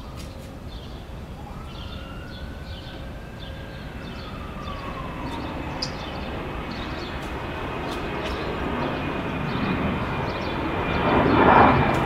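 Passing engine noise, a rumble that builds steadily louder and is loudest near the end, with a faint whine gliding up and back down in the first few seconds. Faint short chirps sound high above it.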